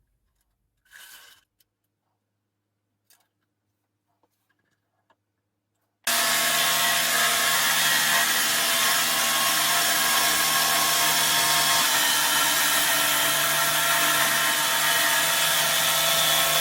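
A few faint clicks, then about six seconds in a jigsaw starts abruptly and runs steadily at full speed while sawing wood.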